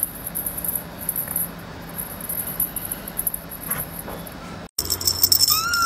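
A thin, high-pitched flickering chirr with a few faint taps. It breaks off suddenly, and a small bell on a cat's wand toy starts jingling. Near the end a kitten gives one short meow that rises and falls.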